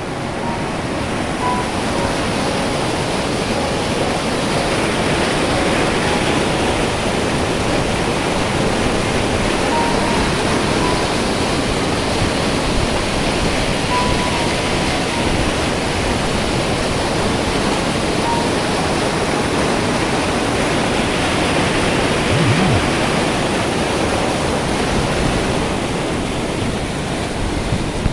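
Floodwater from an overflowing stream rushing steadily, a loud unbroken roar of water.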